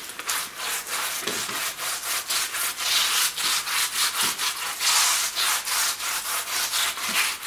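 Rapid rough scraping or rubbing strokes, about four a second, a hand working against a hard gritty surface.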